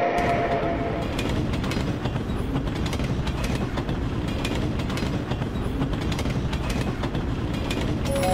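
Passenger train running steadily on its rails: a continuous rumble with repeated wheel clicks. A horn note dies away in the first second.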